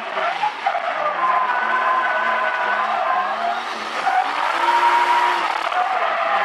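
Turbocharged 2JZ straight-six engine of a drifting Toyota 86, heard on board, revs rising and falling while the tyres skid and squeal.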